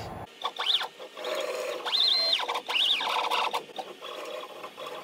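Stepper motors of a DIY GRBL/Arduino CNC router jogging the spindle carriage across the bed in three short moves. Each move is a whine that rises in pitch as the motors speed up and falls as they slow to a stop; the middle move holds its top pitch longest.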